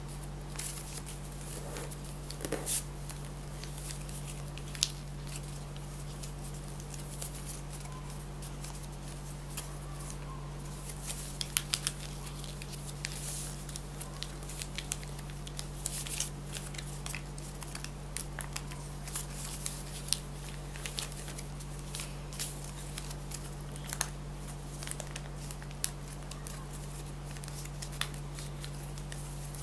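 Paper being handled and folded by hand: scattered crinkles, rustles and light taps over a steady low hum.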